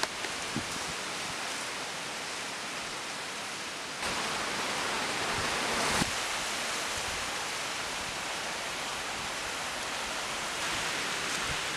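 Steady outdoor background hiss with no distinct source. It grows louder about four seconds in and drops back abruptly two seconds later.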